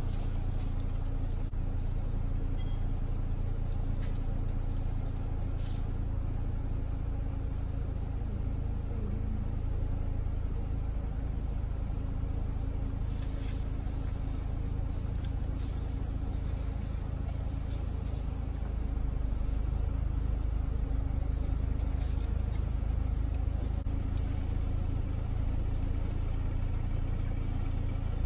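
Vehicle engine idling: a steady low rumble with a faint hum, a little louder in the last third, with a few faint clicks and rustles over it.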